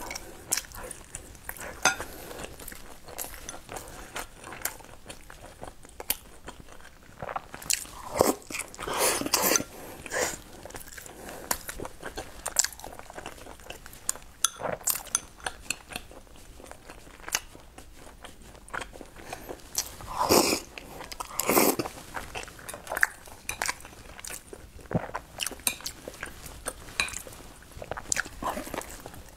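Close-miked chewing of sticky-rice zongzi, with wet mouth sounds and many short clicks, and louder bursts of chewing now and then.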